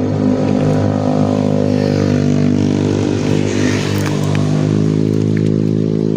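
Engine running steadily close by, its pitch sagging slightly and then holding level from about four and a half seconds in.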